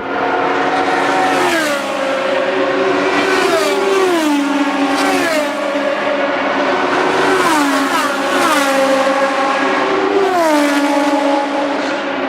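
Racing car engines running hard, with the engine note dropping steeply in pitch about six times as the cars go by.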